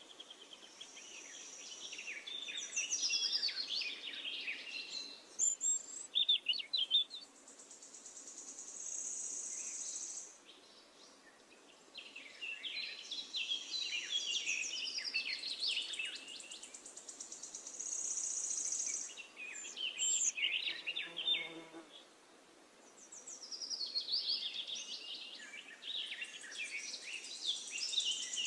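Birds chirping and trilling in bouts a few seconds long, with short quieter gaps between them.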